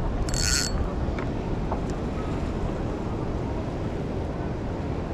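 Steady wind buffeting the microphone, a low rumbling noise with no let-up, and a short hiss about half a second in.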